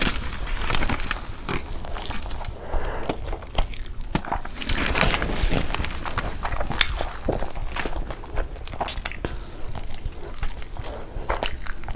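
A person biting into and chewing food, with irregular wet clicks and crunches.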